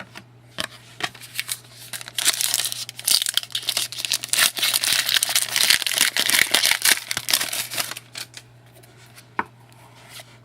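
Trading card pack wrapper crinkling and tearing open for several seconds, with scattered light clicks and taps of cards being handled before and after.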